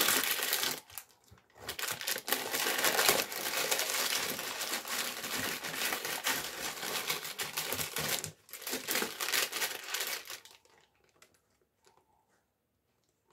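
Gift packaging being handled and pulled open, rustling in three spells with short pauses about a second in and about eight seconds in, then fading out near the end.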